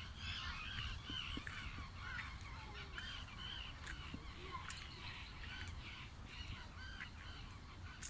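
Birds calling continuously, many short, arched calls overlapping one another, over a low rumble, with one sharp click a little before halfway.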